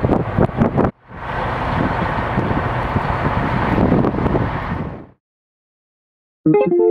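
Storm wind blowing hard across the microphone, an even rush with a low rumble, which cuts off about five seconds in. Near the end a short musical chord starts sharply.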